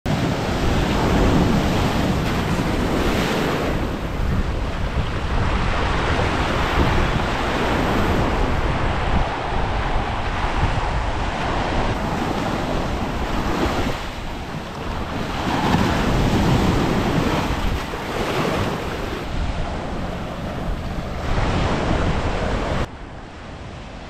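Sea surf breaking on a beach, surging every few seconds, with wind buffeting the microphone. The sound drops off suddenly shortly before the end.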